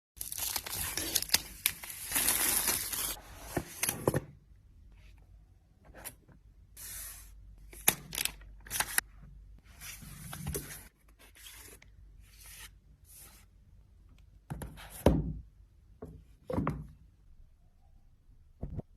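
Unboxing sounds from an iPad keyboard's packaging. A long stretch of tearing at the start, with sharp clicks in it, gives way after about four seconds to short bursts of rustling, scraping and clicking. Two dull thumps come near the end.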